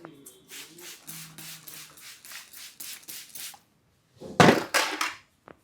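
Hands massaging an oiled scalp and hair in quick rhythmic strokes, about three a second, then a louder, longer stroke about four seconds in and a single short sharp click near the end.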